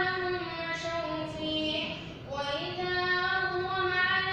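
A boy's voice reciting the Quran in the melodic, sung style of a prayer leader, holding long wavering notes, with a short break for breath about two seconds in.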